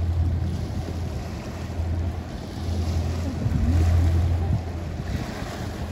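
Wind buffeting the microphone over the wash of water, with a strong low rumble that swells and fades underneath.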